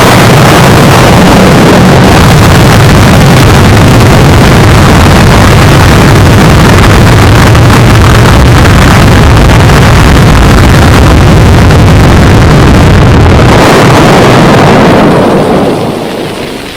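Loud, distorted, continuous roar of an underground nuclear explosion heaving up the ground, fading away over the last second or two.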